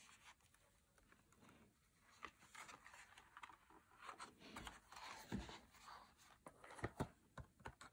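Faint handling noises of a disc digipak and its cardboard slipcase: short rustles and soft clicks as the digipak is folded shut and slid into the sleeve.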